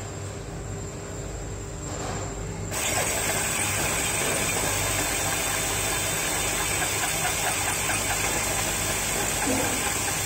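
Cordless drill with a hole saw grinding into hard ceramic wall tile. A low hum is there from the start; about two and a half seconds in, the loud, steady cutting noise of the bit biting into the tile begins and holds.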